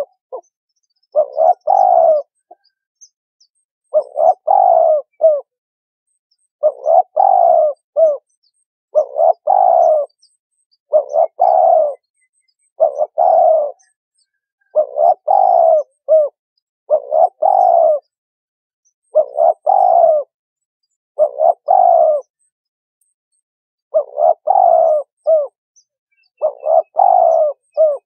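Spotted dove cooing: a short multi-note coo phrase repeated about every two seconds, with complete silence between phrases.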